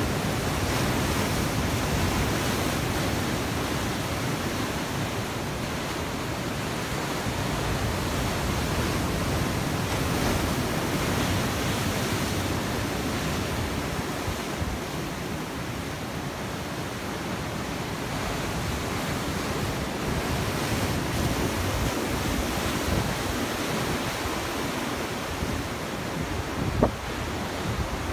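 Ocean waves breaking and washing over rocks: a steady rush of churning surf, with wind rumbling on the microphone. One brief sharp knock near the end.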